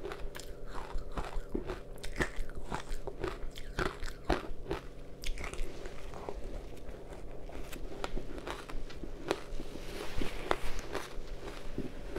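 A person biting into and chewing powdery ice mixed with matcha powder: many crisp crunches and crackles, getting denser about ten seconds in.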